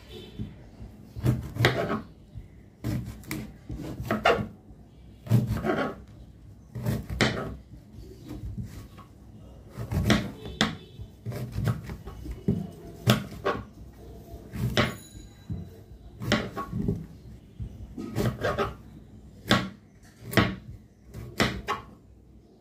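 A knife paring the rough, fibrous skin off a taro corm: a run of short scraping cuts, roughly one a second, at an uneven pace.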